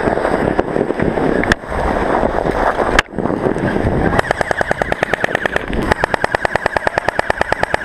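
Airsoft electric rifle firing full-auto, a fast even rattle of about a dozen shots a second with the gearbox motor whining, starting about four seconds in. Before it, a steady rushing noise of the sled being towed over the snow.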